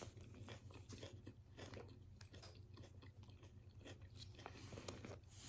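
Faint chewing of a chicken wrap: soft, irregular crunches and mouth clicks, with a low steady hum underneath.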